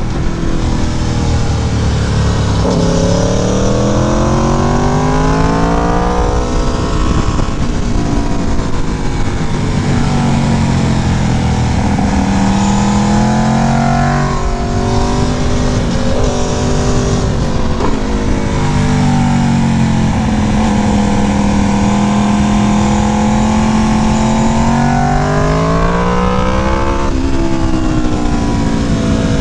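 Aprilia sport bike's engine breathing through an aftermarket exhaust, ridden hard: the revs climb and fall several times.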